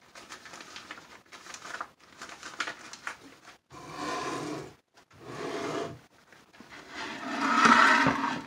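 Rubber-gloved hands handling a plastic pitcher and a plastic mixing bowl on a countertop: a few separate rubbing and scraping noises, the loudest near the end as the bowl is slid across the counter.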